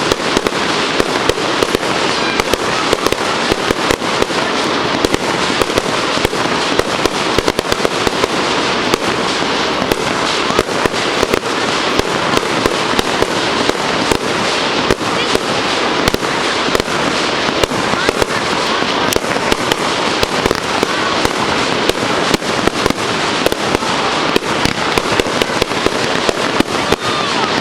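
Fireworks display going off without a pause: a dense, continuous stream of bangs and crackling, several reports a second over a steady rushing haze.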